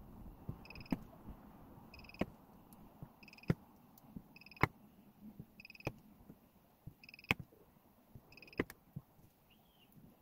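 Battery spot welder firing the nickel strips onto the cells of a DeWalt 18V pack. A short two-tone beep is followed by a sharp weld snap, seven times at about 1.3-second intervals. The pace is sped up fourfold.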